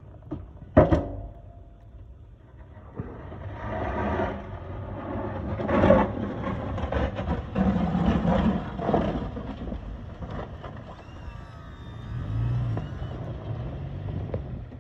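Toyota Tacoma pickup's engine running as its Boss V-plow pushes and scrapes snow, the noise swelling from about three seconds in and easing near the end. A sharp clunk about a second in.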